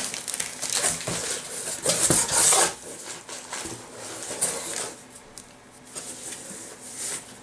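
A cardboard shipping box and its packing being handled and opened, with rustling and scraping. The noise is loudest in the first two and a half seconds, then turns to softer handling with a few light knocks as the book is lifted out.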